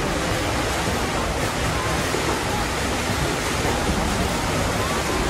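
Steady rush of pool water churned and splashed by swimmers.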